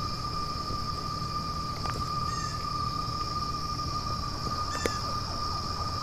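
A steady, unchanging high-pitched tone drones on without a break; it is an unexplained sound that has been going for minutes. A low rumble runs beneath it, with a steady insect-like buzz and two short bird chirps on top.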